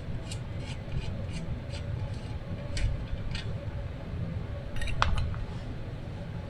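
Light clicks of hand tools or metal parts being handled, about three a second, then a sharp metallic clink with a brief ring about five seconds in.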